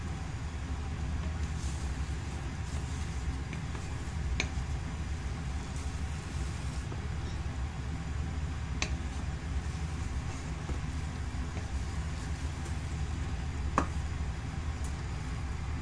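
Wooden spatula stirring scrambled eggs in a nonstick frying pan, with a few light taps of the spatula against the pan, the sharpest near the end. A steady low rumble runs underneath.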